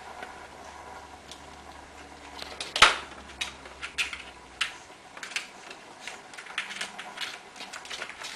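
Kittens batting a ball around a plastic ball-track toy: irregular clicks and rattles of the ball and paws on the plastic, with one loud knock about three seconds in.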